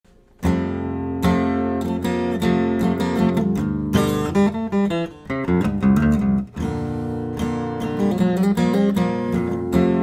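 Solo acoustic guitar playing a country tune, picked notes and chords beginning suddenly about half a second in.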